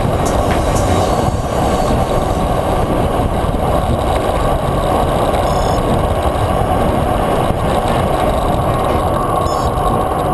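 Steady rush of wind and road noise on a bicycle-mounted action camera's microphone while riding at speed on a paved road.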